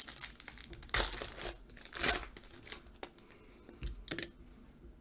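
A foil trading-card pack torn open and crinkled by hand. The sharpest rips come about one and two seconds in, with another brief crinkle about four seconds in, and softer rustling between them.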